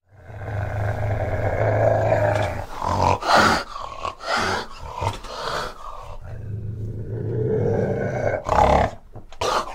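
Fishing cat growling in two long low stretches, with a run of short, sharp bursts in between and again near the end.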